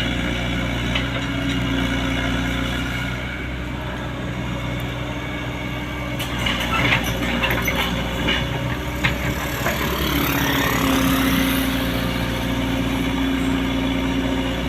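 Komatsu PC75US-3 excavator's diesel engine running steadily, with scattered clanks and knocks midway and a rising whine about ten seconds in as the engine note lifts.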